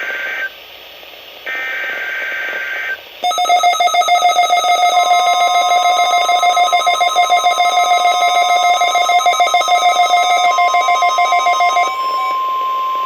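NOAA Weather Radio Required Weekly Test alert: the end of one SAME digital header burst, then a second full burst, both short screeching data tones. Then a loud alarm pulsing rapidly, about five times a second, for about eight seconds. Under it comes the steady 1050 Hz NOAA warning tone, which starts a few seconds later and carries on alone for a couple of seconds after the pulsing stops.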